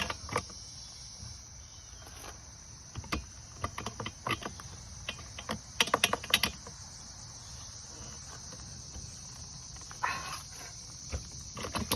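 Steady high-pitched insect chorus, with scattered short clicks and knocks from hands handling parts.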